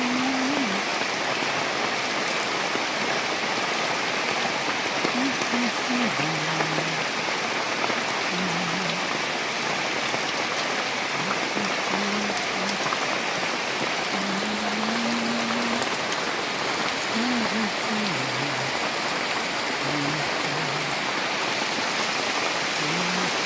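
Steady rain falling, a dense even hiss of drops on surfaces, with faint low notes coming and going underneath.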